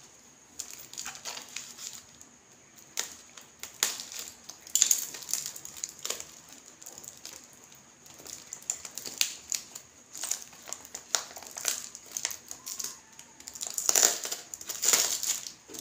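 Aluminium foil wrapped around a plant pot crinkling and crackling as hands unwrap and squeeze it, in irregular bursts, loudest near the end.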